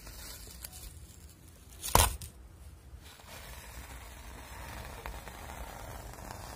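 Masking tape being peeled off a painted canvas: a sudden loud scrape about two seconds in, then a steady, quieter peeling noise through the second half.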